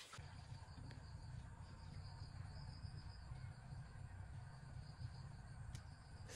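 Crickets chirping in a fast, even trill, faint, over a steady low rumble.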